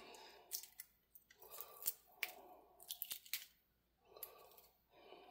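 Faint crackling of eggshell being peeled off a hard-boiled egg by hand, in irregular clusters of small clicks and snaps.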